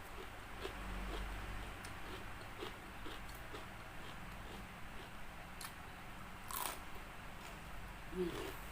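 Chewing crispy fried chicken, the battered coating crunching in a run of short crackles, with one louder crunch about two-thirds of the way through.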